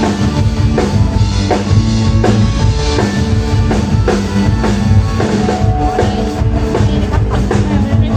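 Band playing live: a drum kit beats out regular kick and snare hits over a steady low bass line.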